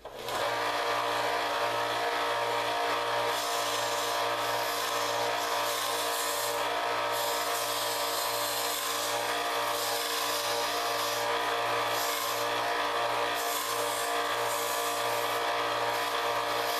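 Small benchtop belt sander switched on and running steadily, its motor giving a constant hum under the hiss of the belt sanding the edges of small walnut discs. The hiss drops away briefly now and then.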